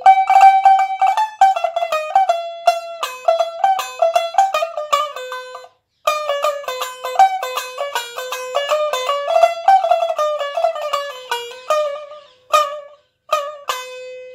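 Tumbi, the single-string Punjabi lute, plucked in quick melodic runs of a tune in Kafi thaat. There is a brief break about six seconds in; near the end the playing thins to a few single plucks and one last ringing note.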